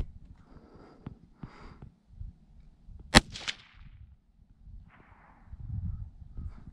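A single shot from a Savage 93R17 .17 HMR rimfire rifle about three seconds in: one sharp crack with a short echo trailing after it.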